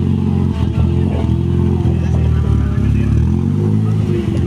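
Rally car engine running loud and close, its pitch rising and falling a little as the throttle is worked.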